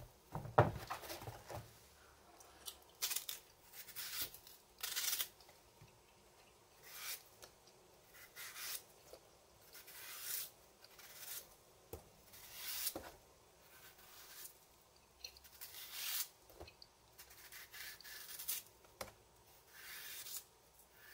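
Knife peeling green matooke bananas: short scraping strokes as the peel is shaved off, roughly one every second or so, with a sharp knock about half a second in.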